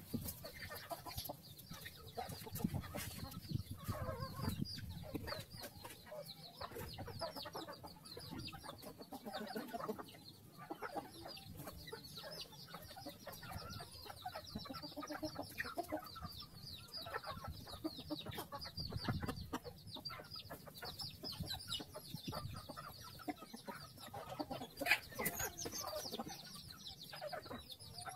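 A flock of chickens feeding: hens and roosters clucking in short, irregular calls, with a continual high peeping of chicks above them.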